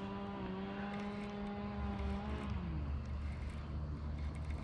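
An engine hums steadily, then drops in pitch about two and a half seconds in and settles to a lower, steady note, as a motor does when it throttles down.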